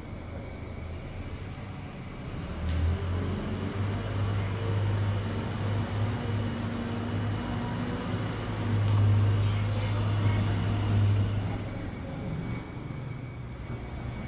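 A steady low engine hum that swells about two seconds in, is loudest past the middle and fades near the end, like a motor passing nearby.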